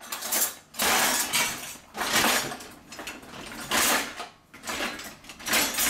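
Vegetable peeler scraping down a raw carrot in repeated strokes, about six of them, roughly one a second.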